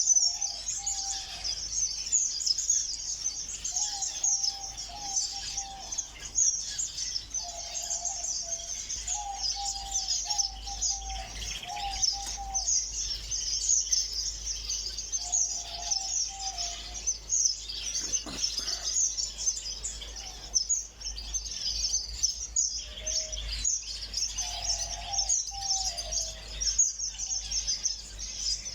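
Many small cage birds chirping together in an aviary: a dense, continuous high-pitched chatter, with short lower calls breaking in every few seconds.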